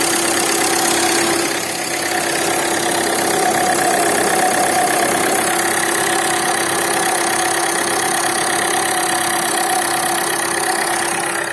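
2011 Ford Fiesta Mk7 1.4 TDCi four-cylinder diesel idling with the air conditioning on. A steady tonal drone sits over the engine and drops out about a second and a half in, while another steady tone carries on. This is the noise the owner hears when the A/C is running.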